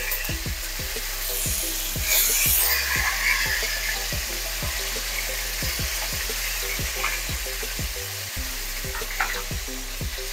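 Seasoned oxtail pieces sizzling as they are spooned into hot oil in a pot, the steady sizzle swelling louder about two seconds in.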